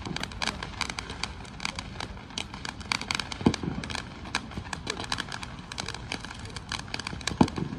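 Distant fireworks: dull booms, the strongest about three and a half seconds in and again near the end, over continual quick crackling.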